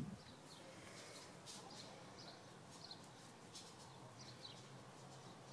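Near silence: faint light ticks of puppy claws on a tile floor, with a few faint short high chirps.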